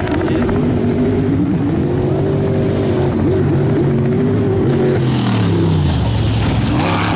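Off-road race vehicle engines revving hard, their pitch rising and falling repeatedly, then dropping about five seconds in.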